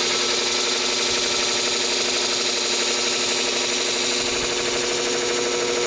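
Steel shear blade grinding against a fresh 400-grit abrasive spinning on a sharpening machine's cushion plate: a steady grinding hiss over the machine motor's hum, the sound of the blade actually cutting and raising a burr along the edge.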